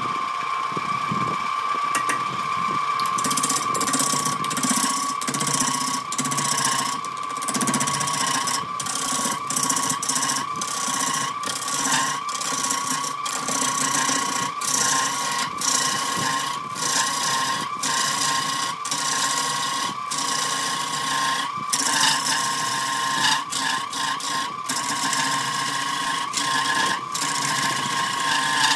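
Wood lathe motor running with a steady whine while a hand-held turning tool cuts into a spinning raw log with its bark still on. Rapid, irregular knocks and chip noise start about three seconds in, as the tool meets the uneven surface of the log.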